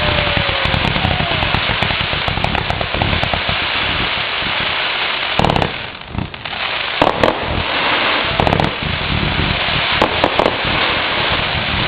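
Aerial fireworks going off in a continuous barrage: dense crackling throughout, broken by clusters of louder bangs several times, with a whistle falling in pitch and fading in the first second.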